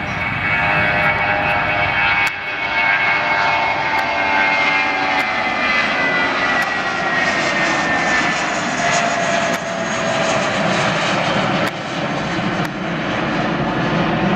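Airliner engines running loud as the aircraft passes, with a steady rush and a whining tone that falls slowly in pitch.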